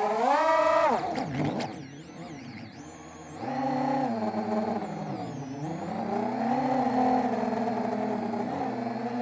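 FPV freestyle quadcopter's motors whining, their pitch rising and falling with the throttle: a sharp punch-up at the start, a drop to quieter running from about one to three seconds in, then back up and wavering.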